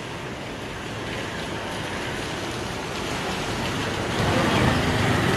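Steady rushing noise of heavy rain and floodwater on a swollen river, growing louder and stepping up sharply about four seconds in.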